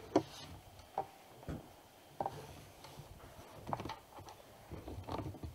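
About six faint, irregularly spaced clicks and small taps in a quiet room, the strongest right at the start.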